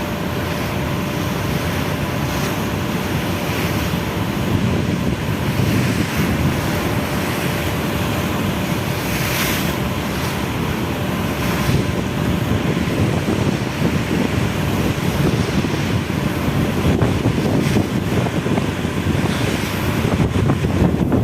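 Strong wind buffeting the microphone: a loud, steady rushing roar with no breaks.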